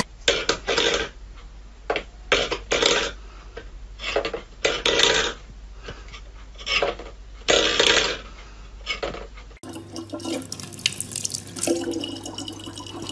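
A small steel bowl scraped and knocked about on a wooden floor by a cat's paw, in about ten short scrapes. For the last few seconds a tap runs steadily.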